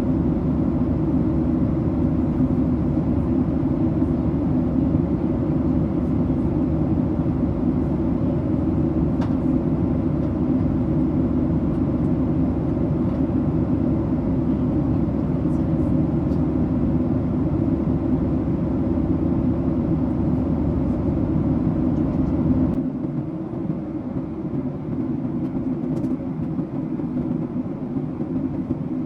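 Steady low mechanical drone with a constant hum. About three quarters of the way through, the deepest rumble drops away and it becomes a little quieter.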